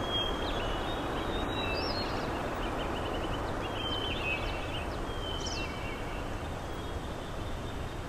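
Forest ambience: small birds chirping and whistling in short phrases over a steady background hiss.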